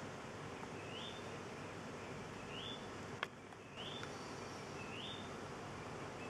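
A bird repeating a short call that rises in pitch and then holds briefly, about once every second and a half, over a steady background hiss. There is one sharp click a little over three seconds in.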